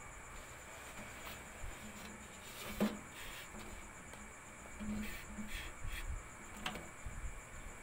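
Small sharp clicks and knocks of fingers working a DDR3 memory module in a desktop motherboard's RAM slot, the loudest a single sharp click about three seconds in, over a faint steady high whine.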